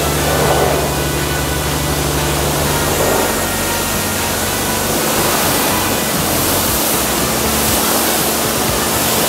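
High-pressure washer spraying warm water over a car's bodywork to rinse it: a loud, steady hiss of spray.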